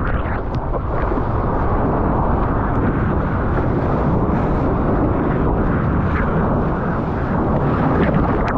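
Steady rush of whitewater and spray with low rumbling wind buffeting, heard on an action camera riding a breaking wave close to the surfboard.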